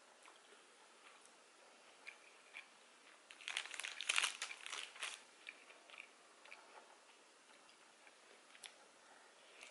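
Close-up chewing of a mouthful of pizza with small wet clicks, and a dense cluster of crunchy crackles from about three and a half to five seconds in, the loudest part.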